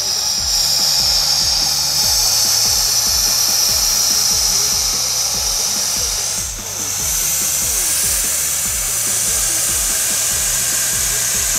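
Hydrogen gas hissing as it flows into a rubber punch balloon, a loud steady high hiss that dips briefly about six and a half seconds in.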